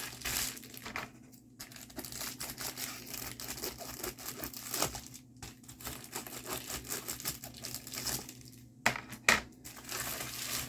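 Plastic packaging of a diamond painting kit crinkling and rustling as it is handled, with two sharp clicks close together near the end.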